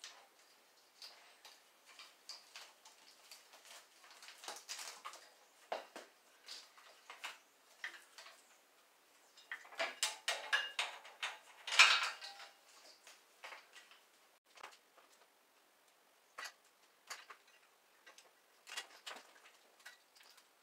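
Scattered metallic clicks, knocks and rattles of hands and tools working parts loose on a mini ATV's frame during teardown, with a denser, louder stretch of clattering about ten to twelve seconds in.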